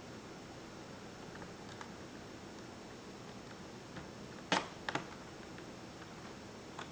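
A sharp click about halfway through, then a quick double click, over a steady hiss: small laptop parts or tools being handled during disassembly.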